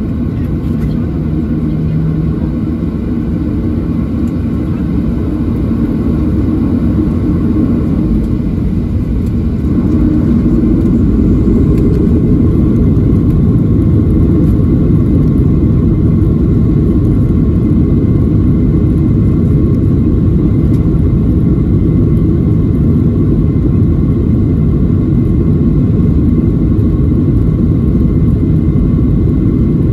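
Boeing 737-800's CFM56-7B jet engines heard inside the cabin from a window seat over the wing: a deep rumble that grows louder over roughly the first ten seconds as thrust builds for takeoff, then holds steady and loud as the airliner rolls down the runway.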